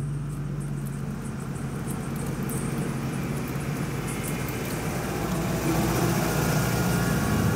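Car engine running steadily with road noise, a low hum that grows gradually louder.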